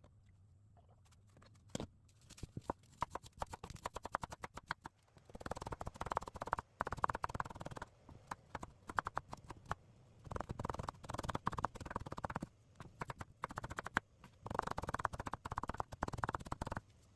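Knife chopping quickly on a cutting board: runs of rapid sharp knocks in several bursts, the densest about five, ten and fifteen seconds in.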